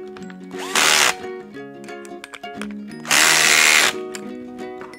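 A power drill driving screws during reassembly of a chainsaw, in two short bursts, the second one longer. Background music plays underneath.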